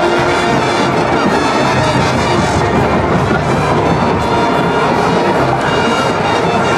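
Marching band playing, with brass to the fore, loud and continuous.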